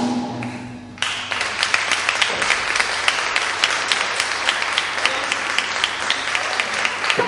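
The last notes of a live band's song die away, and about a second in an audience starts applauding, a steady clatter of many hands clapping.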